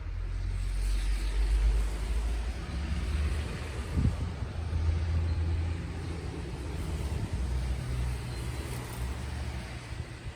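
Strong wind buffeting the microphone in gusts: a low, uneven rumble over a steady hiss.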